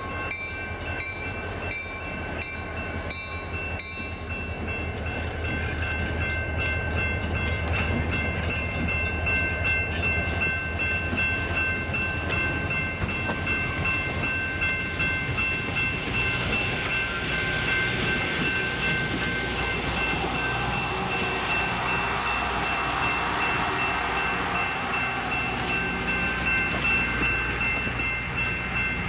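Diesel locomotives of a passenger train running, a steady low rumble, with several steady high tones held throughout and a swell of rushing noise as the train comes close about halfway through.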